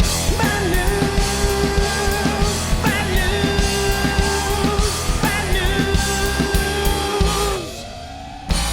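Rock music with electric guitar and drum kit, thinning out in the last second or so to a held guitar note that bends slowly upward, with a drum hit near the end.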